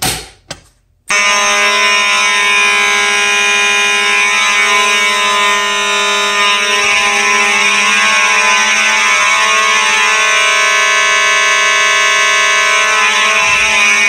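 A Simplex manual pull station clacks as its handle is pulled. About a second later two Simplex 2901 fire alarm horns start sounding together in a loud, steady, continuous tone: the system is in alarm.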